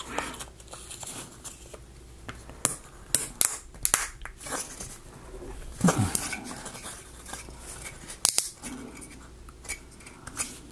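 Thin laser-cut plywood pieces clicking and tapping as they are handled and pressed together, with a few sharper knocks, one of the loudest about eight seconds in.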